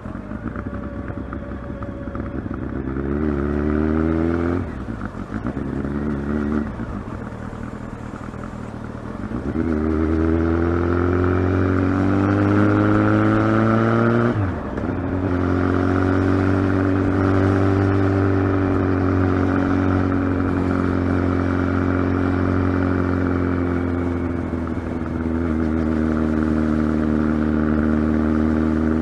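Kawasaki ZX-12R's inline-four engine pulling up through the gears, its pitch rising and briefly dropping at each shift, then holding a fairly steady cruise with a slight fall and rise in revs near the end.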